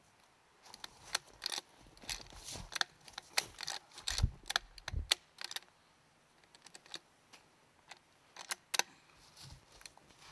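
Metallic clicks and clacks of a scoped hunting rifle being unloaded, the action worked and cartridges taken out, in a quick run lasting about five seconds with a few dull knocks among them. A few more clicks come near the end.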